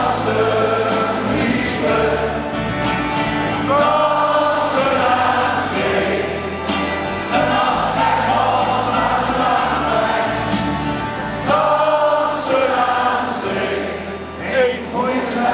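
Live acoustic band music with accordion and acoustic guitars, and many voices singing together, heard from high in the arena stands.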